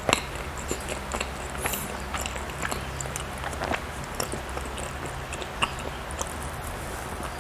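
Close-up mouth sounds of someone biting and chewing soft red bean mochi bread, with scattered small sharp clicks and smacks. The loudest click comes right at the start.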